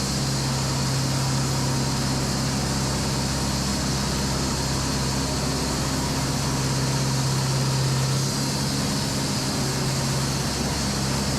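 Echo 45HD2 production band sawmill and its machinery running steadily: a constant low hum over dense mechanical noise, the hum easing slightly about eight seconds in.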